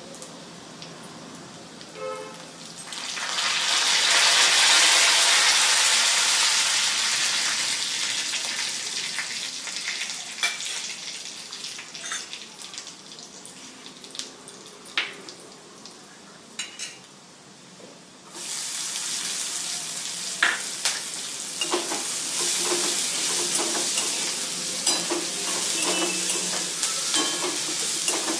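Food frying in hot oil in a pan. A loud sizzle starts suddenly about three seconds in and slowly dies down, then a second sizzle starts suddenly near the middle, as if more is added. Spoon clicks and scrapes against the pan from stirring run through it.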